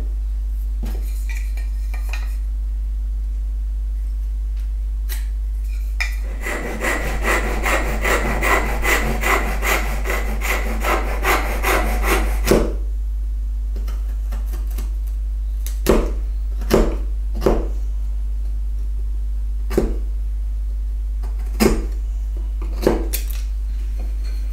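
Hand saw cutting a notch in a small piece of wood, quick even strokes for about six seconds, then a scattering of separate sharp knocks and clicks as a chisel works the waste out of the notch. A steady low electrical hum runs underneath.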